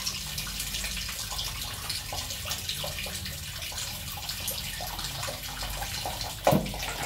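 Tap water running steadily into a sink while dishes are washed by hand, with small clinks of dishware. Near the end there is a single louder knock.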